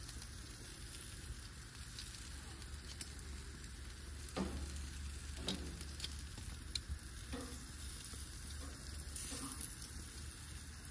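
Bacon-wrapped duck breasts sizzling on the hot grates of a propane gas grill, with a few light clicks as metal tongs turn the pieces.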